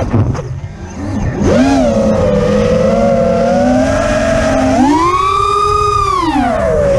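FPV racing quadcopter's brushless motors and propellers whining, heard through the onboard camera's microphone. The whine drops away as the throttle is cut just after the start and returns about a second and a half in. It holds steady, climbs sharply about five seconds in, then falls again near the end, over a rush of air.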